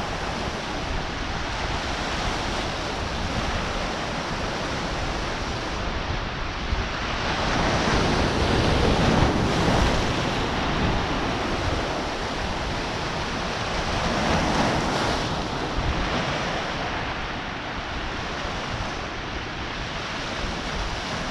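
Sea waves breaking on a rocky shore and washing over the rocks in a steady rushing wash. The surge swells louder twice: about a third of the way in and again just past the middle.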